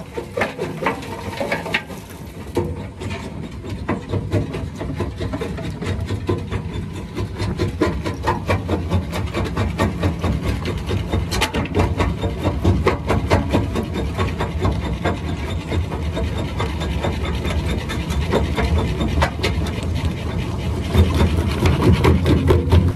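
Herbst Agri-Crusher jaw crusher running and crunching stone and concrete rubble in its jaws. There is a steady low rumble under many sharp cracks and knocks, and the rumble grows louder near the end.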